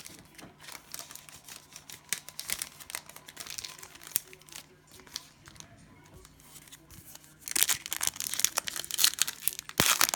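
Cellophane wrapper of a trading-card cello pack crinkling and tearing as it is opened: light crackles and handling at first, then loud, dense crinkling from about seven and a half seconds in.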